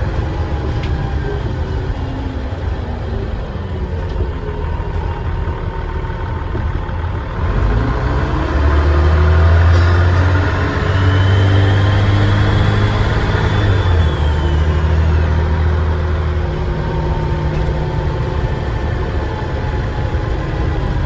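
Dennis Trident double-decker bus engine pulling away and accelerating through the gears, with a high turbo whistle that rises as the engine works harder and then fades.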